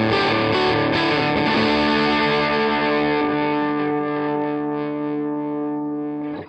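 Les Paul electric guitar through a Sonicstage Sunface fuzz pedal: a few quick fuzzy notes, then a distorted chord left to ring and slowly fade for several seconds before being cut off sharply near the end.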